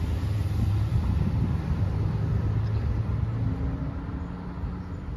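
Steady low rumble of road traffic, with a faint engine hum in the second half.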